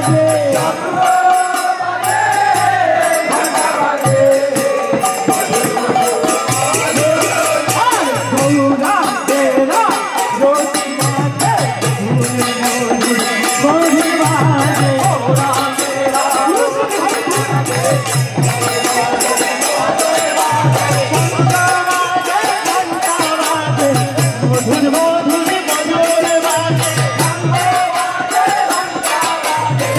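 Kirtan music: voices singing a devotional chant over small hand cymbals struck in a steady, continuous beat, with a low tone that comes and goes every second or two underneath.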